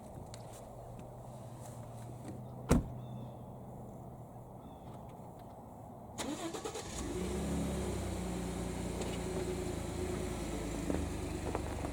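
A single loud knock a little under three seconds in, then a pickup truck's engine cranks and starts about six seconds in and settles into a steady idle.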